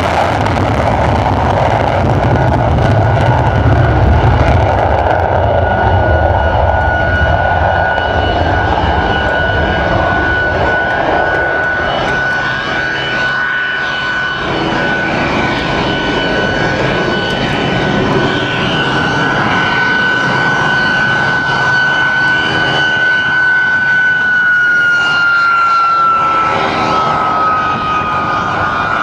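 Saab 37 Viggen's jet engine at takeoff power, loudest in the first few seconds, then fading as the jet climbs away. Under it a steady high jet whine sets in about five seconds in and falls in pitch near the end; it comes from the Saab 29 Tunnan taxiing nearby.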